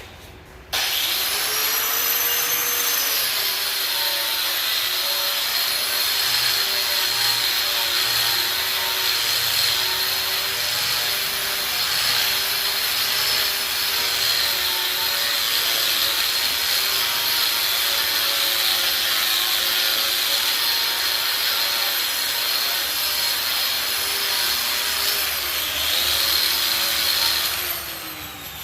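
Angle grinder starting up about a second in, its pitch rising as it spins up, then running steadily against the steel of a welding table to strip rust scale. It shuts off near the end and winds down.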